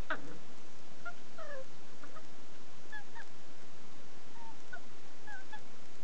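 Jack Russell terrier puppy squealing while tugging on a toy: a louder cry right at the start, then many short, high squeaks that rise or fall in pitch.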